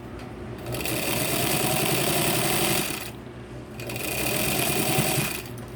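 Vintage Singer model 15 clone sewing machine running in two bursts of stitching, with a short pause between. In each burst the motor's whine rises as it speeds up, as it stitches through layers of nylon webbing and 500 denier nylon fabric.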